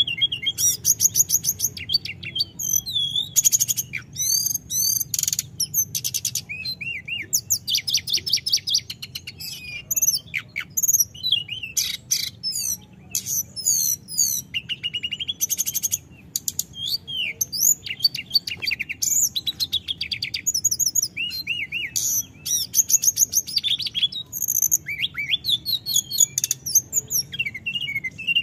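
Hill blue flycatcher singing continuously: a fast, varied song of high swooping whistles and rapid trills, phrase after phrase with hardly a pause.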